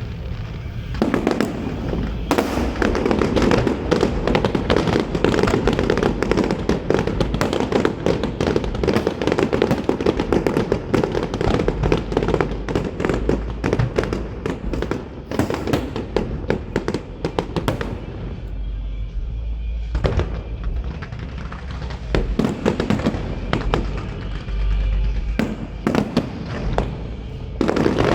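Aerial fireworks going off in a dense, continuous run of crackling bursts and bangs that thins briefly about two-thirds of the way through, with music playing underneath.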